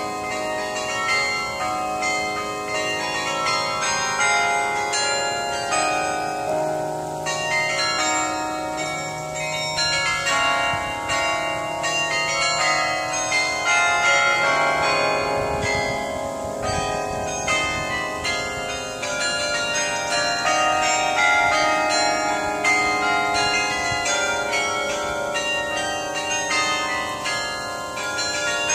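A tower carillon being played: a tune of many bell notes struck in quick succession, each ringing on under the next so that the tones overlap.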